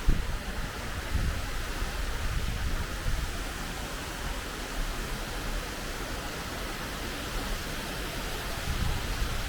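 Steady rain falling, an even hiss of many drops, with occasional low rumbling thumps underneath.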